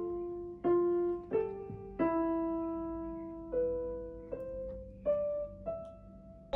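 Portable electronic keyboard on a piano voice, played one note at a time: a slow, simple melody of about eight notes, each ringing and fading before the next.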